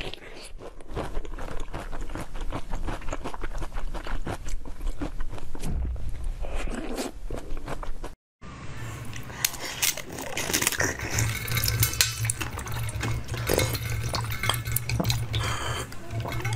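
Close-miked eating sounds: wet smacking and squishing as a jelly cup topped with whipped cream is bitten and chewed. After a brief cut to silence a little past halfway, crisper clicks and crunches over a low steady hum as a frozen, seed-studded disc is handled and bitten.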